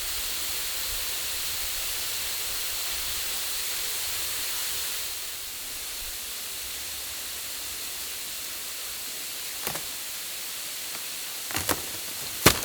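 Steady rushing of a waterfall close by, with a few short sharp cracks near the end, the loudest about half a second before it ends.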